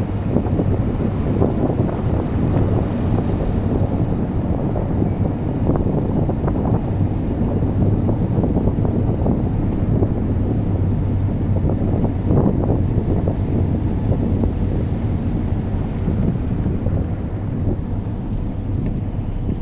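Car driving over a loose stone-chip surface: steady low rumble of tyres and engine with wind noise on the microphone, and a few sharper crackles of stones, one about six seconds in and another past the middle.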